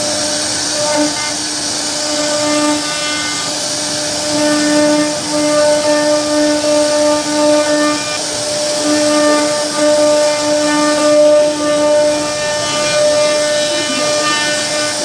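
CNC router spindle running at speed as its bit carves a relief into a wooden door panel: a steady whine over the hiss of cutting, swelling and easing as the bit bites into the wood.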